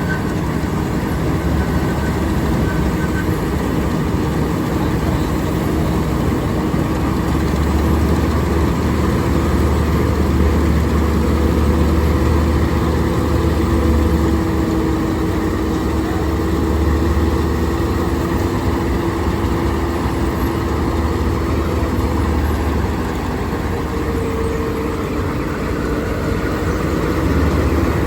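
Panesar G-60 mini combine harvester running steadily, a continuous heavy engine rumble with a faint steady whine from its machinery.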